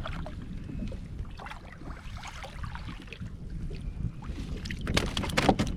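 Low, steady wind and water noise around a small fishing boat, with scattered light knocks, then a quick run of sharp clicks and knocks near the end.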